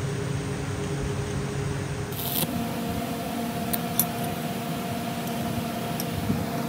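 Steady machine hum with a few faint ticks.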